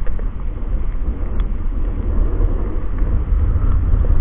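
Wind buffeting the microphone: a steady, loud low rumble with no clear engine tone.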